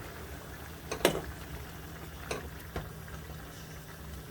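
A spoon stirring ingredients in a cooking pot, clinking against the pot a few times, the loudest clink about a second in, over a steady low hum.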